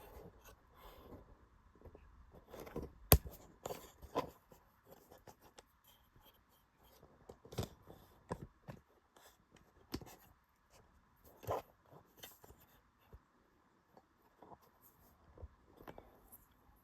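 Hands handling a sewing machine bobbin and its bobbin area: scattered small clicks, taps and light rubbing, with one sharp click about three seconds in.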